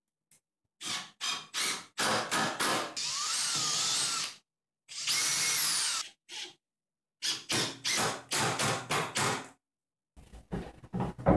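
Makita 18V cordless drill boring into a wooden brace in a series of short spurts and two longer runs, its motor whine rising and falling in pitch as the trigger is eased.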